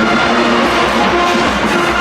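Loud music with held, horn-like notes over a steady beat.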